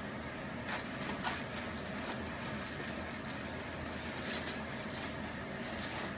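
Steady background hum, with a few short, soft rustles of packaging being handled.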